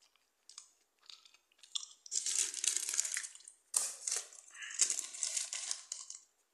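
Paper food wrapper crinkling and rustling as it is handled, in two long stretches starting about two seconds in.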